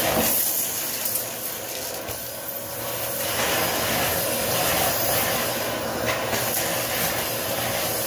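Aspiron CA006 canister vacuum cleaner running steadily with a rushing hiss and a low hum, its floor brush, set for hard floors, sweeping over tile and sucking up small debris.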